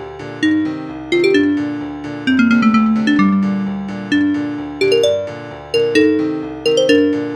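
Piano ringtone melody: struck notes and chords that ring and die away, about one every second, with a short descending run of quicker notes a couple of seconds in.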